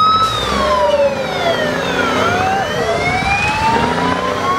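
A fire engine's wailing siren. Its pitch sinks over about two seconds, then climbs slowly back up, over the low rumble of the truck's engine.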